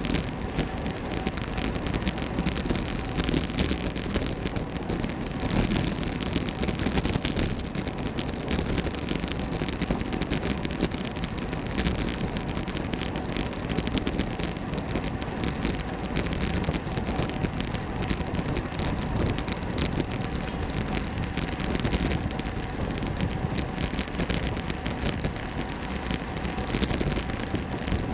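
Steady rush of wind over a bicycle-mounted camera's microphone, mixed with tyre hiss on the road surface, riding at about 20 mph.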